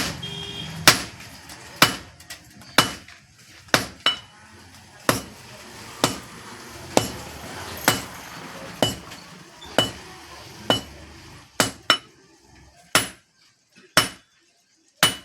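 Hand hammer striking steel on an anvil, about one blow a second, each blow ringing briefly. This is a blacksmith forging a knife out of a bicycle pedal gear.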